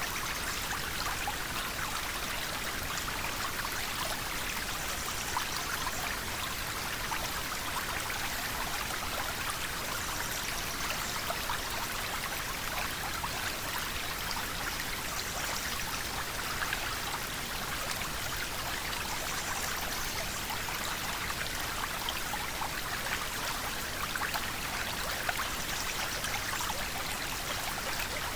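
River water flowing steadily over stones, a continuous rushing with fine trickling and splashing detail.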